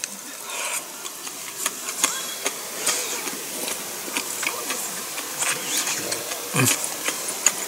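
Close-up eating sounds: a sip from a soup bowl, then chewing with many small wet mouth clicks and smacks. A brief low hum from the eater about six and a half seconds in.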